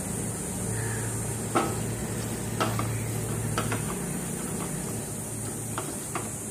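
A silicone spatula stirring thick vegetable sauce in a stainless steel pan, knocking and scraping against the pan about once a second, over steady sizzling and a low hum.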